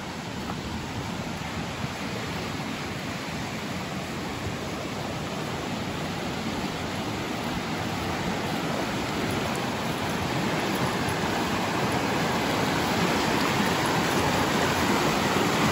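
Creek rushing over rocks, a steady wash of water that grows slowly and evenly louder.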